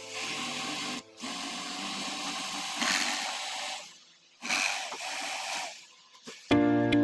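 A steady hissing noise that starts and stops three times: a short burst, a longer one of about three seconds, then a shorter one. Background music comes back near the end.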